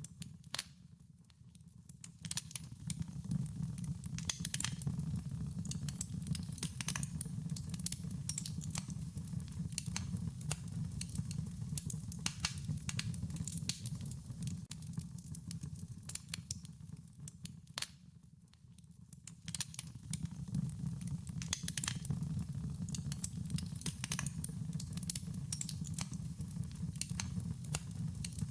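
Wood fire crackling, with irregular sharp pops and snaps over a steady low rumble of burning flames; it quietens briefly about a second in and again around eighteen seconds.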